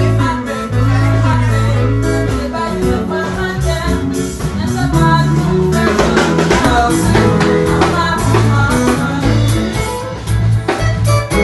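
Music: a song with a steady bass line, drums and guitar, and singing at times.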